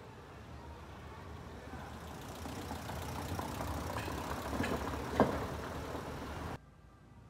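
A car driving past in a narrow street, its engine and tyres growing louder over a few seconds, with one sharp knock about five seconds in. The sound cuts off suddenly near the end.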